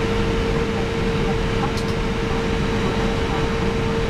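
Steady cockpit noise of an Airbus A319 on the ground during engine start: an even rush of air and fans with a steady mid-pitched hum. A faint double tick comes about two seconds in.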